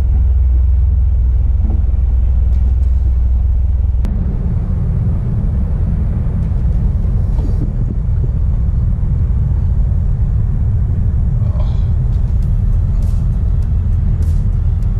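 A loud, steady low rumble, heaviest in the first few seconds, with a few faint sharp ticks near the end.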